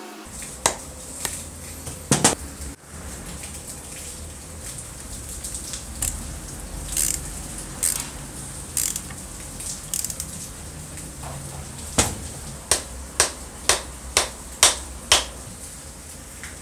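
Screws being driven into the cast aluminium housing of a Shinko 1/2-inch electric drill with a screwdriver: irregular sharp metallic clicks and clinks, coming in a quick run near the end, over a steady low hum.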